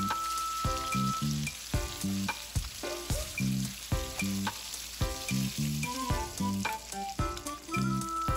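Lamb chops and garlic sizzling in bubbling butter in a skillet as tongs lift the chops out. Background music with a steady beat plays over the sizzle.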